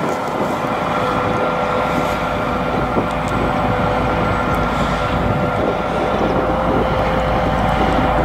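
Ropa Tiger 6 self-propelled sugar beet harvester running as it harvests, a steady machine drone with a constant whine over it.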